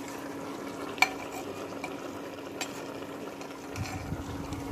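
A metal spoon stirring meat chunks and spices in a metal pot, with one sharp clink of spoon against pot about a second in and a few lighter knocks after, over a steady low hum.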